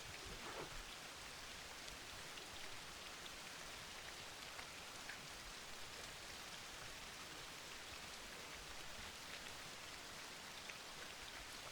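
Steady, faint rain falling, an even hiss with the odd light drop tick.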